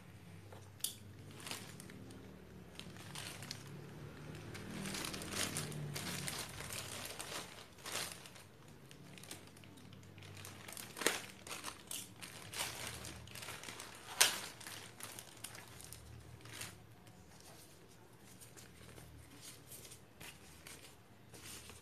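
Thin plastic courier bag crinkling and rustling as hands unwrap it, in irregular crackles with a few sharper, louder snaps near the middle.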